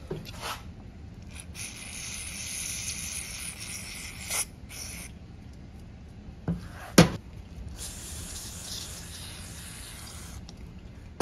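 Aerosol cleaner spraying onto carburetor parts in two hissing bursts of about two to three seconds each, with a single sharp knock between them.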